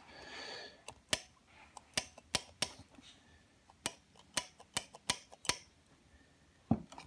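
Ford Model T ignition coil fired single shots on a coil tester: about ten sharp snaps at uneven intervals, one spark each.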